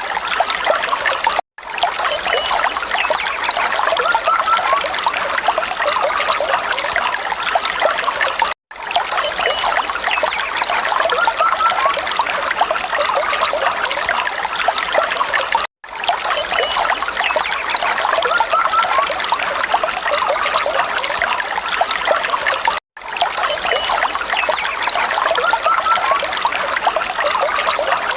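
Falling water trickling and splashing steadily. It is a short recording played on a loop that cuts out for a split second at each join, about every seven seconds.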